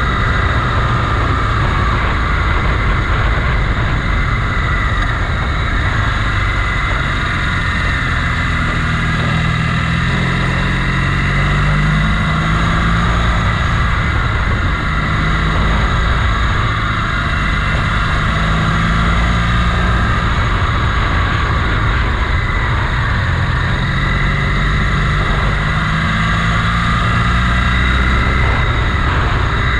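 Motorcycle engine running on the move, its note rising and falling, under a steady rush of wind noise.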